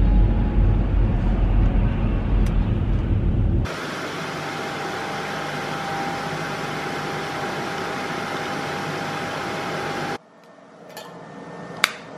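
Road rumble inside a moving car for about three and a half seconds. It cuts to a steady whirring hiss with a faint whine from a kitchen coffee machine, which stops sharply about ten seconds in. A sharp click near the end comes from a long candle lighter being sparked.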